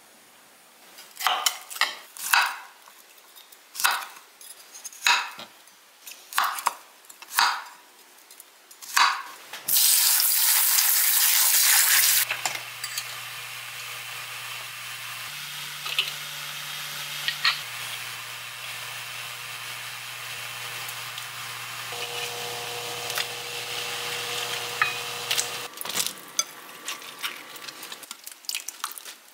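Dishes and a glass bowl knock and clink several times, then water pours for about two seconds. After that an induction cooktop hums steadily under a stainless pan of water, its low tones stepping in pitch, with a steady hiss from the heating pan, before a few last light clinks.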